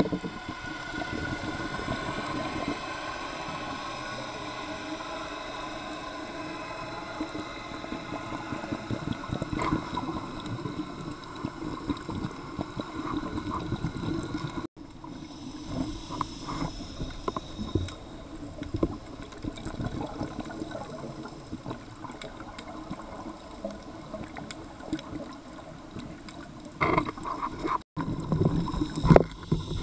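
Underwater sound picked up through a dive camera's housing: a steady watery rush, broken twice by brief dropouts, with louder bubbling bursts near the end.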